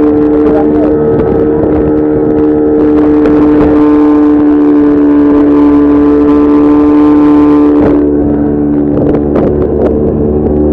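Outboard motor of a small launch running steadily at speed, with a strong droning tone; the sound eases slightly about eight seconds in.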